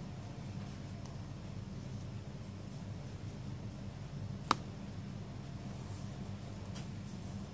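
Faint scratchy strokes of a chisel-tip calligraphy marker drawn across notebook paper, over a steady low hum. One sharp click about four and a half seconds in.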